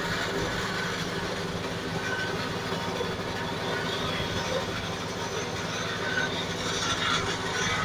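Feed milling machine running steadily, a continuous mechanical hum with even low tones and a rushing noise on top.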